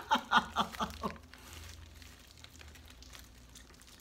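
A person laughing in a quick run of short bursts, about four a second, for the first second or so.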